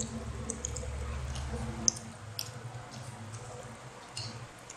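A child eating fried chicken and rice by hand: scattered small wet mouth clicks and smacks from chewing and licking his fingers. A low hum underneath stops about two seconds in.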